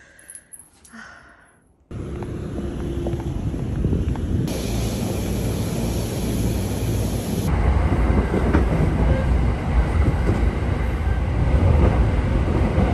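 Train running, heard from inside the carriage: a steady rumble that starts suddenly about two seconds in. For about three seconds in the middle, a small handheld electric fan blows close by, adding a bright hiss.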